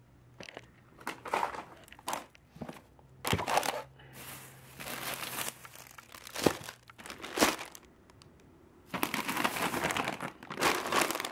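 Plastic grocery bag and snack packets crinkling and rustling in irregular bursts as they are handled and packed into a suitcase, with a few sharp knocks in between.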